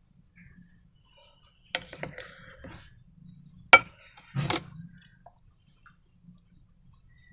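A few sharp clicks and knocks of hard objects being handled, with brief rustling between them. The loudest is a single sharp click just under four seconds in, and a short scraping burst follows it.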